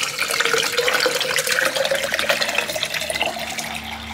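Water pouring in a steady stream from a plastic gallon jug into a container. The pitch rises slowly as the container fills, and the pour eases off near the end.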